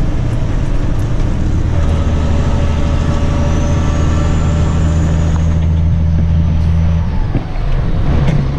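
Grain truck engine running steadily. Near the end its note cuts out briefly and comes back at a higher pitch.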